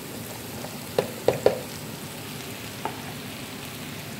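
Sliced bitter gourd frying in a pan with a steady sizzle as sliced onion is tipped in. Three sharp knocks come close together about a second in, and a lighter one near three seconds.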